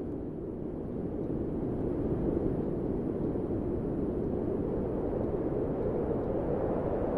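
Wind sound effect: a steady, low, deep rush of wind with no gusts or whistles, easing slightly near the start and swelling a little about two seconds in.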